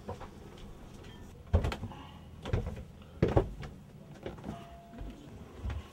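Footsteps going down wooden stairs: a handful of dull thumps at uneven spacing, roughly a second apart.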